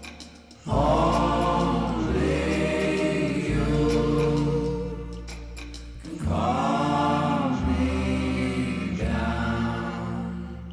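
Music: a song with singing voices holding long notes over a steady bass line, in two swells, fading out near the end.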